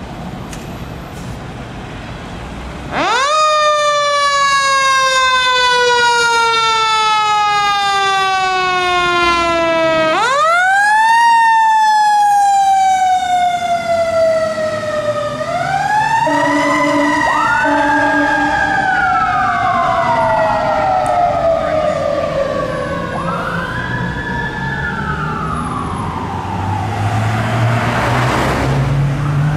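Fire engine siren starts about three seconds in. It winds up fast and slides slowly down, does so a second time, then rises and falls in shorter swoops. Engine and road noise grow near the end.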